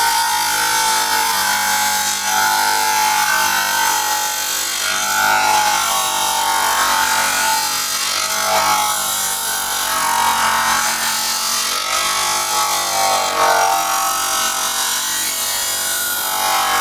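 Electric bench grinder running, with a wavering grinding sound as a part is held against the spinning wheel and worked back and forth to grind material away.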